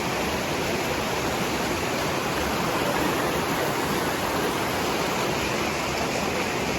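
Steady rush of a river and small waterfalls running over rocks.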